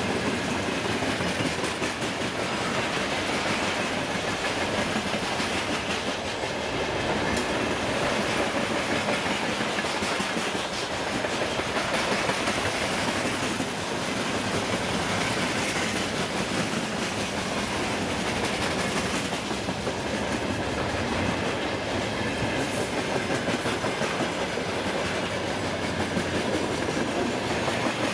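Freight train wagons (gondolas, boxcars and hopper cars) rolling past on the near track: a steady rumble with the wheels clacking over the rail joints.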